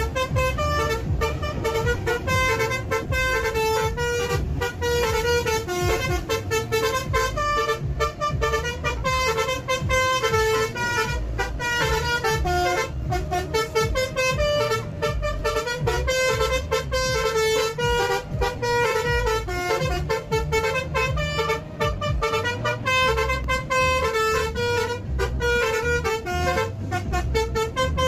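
Multi-tone 'telolet' bus horn playing a melody of quickly changing notes, over the bus's engine and road rumble in the cab.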